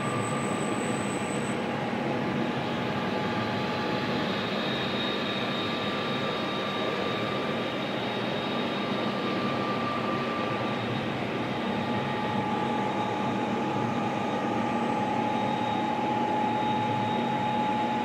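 Steady mechanical hum of robotic welding cell equipment, with several thin whining tones on top; one whine fades near the middle and a lower one grows in about twelve seconds in.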